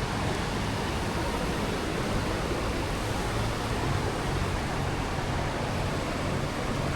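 Steady rushing noise of a large waterfall, an even hiss with no breaks.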